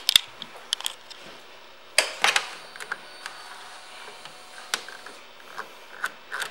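Scattered clicks, taps and rustling of hand handling around a motorcycle's handlebars and under its fairing, with a busier cluster of knocks about two seconds in. The engine is not running.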